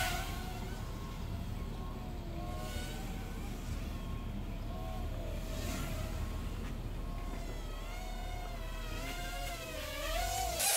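Blade Nano QX micro quadcopter's small brushed motors whining, the pitch wavering up and down as the throttle changes and rising and falling more in the last few seconds, over a steady low rumble.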